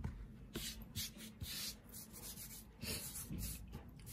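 Hands sweeping and rubbing across a floury silicone baking mat: several short, dry brushing strokes in quick succession.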